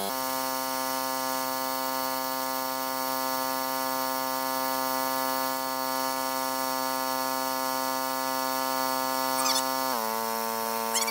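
Heat gun blowing steadily while a Champion portable gas generator drones along powering it, shrinking heat-shrink tubing over wire splices. About ten seconds in, the pitch drops a step. A few light clicks come near the end.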